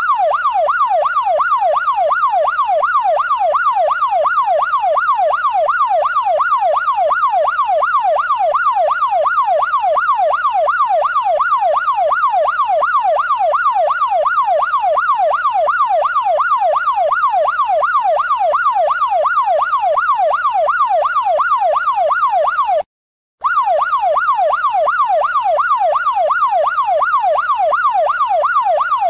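Police siren on a fast yelp, its pitch sweeping up and down two to three times a second. It cuts out for about half a second some 23 seconds in, then carries on.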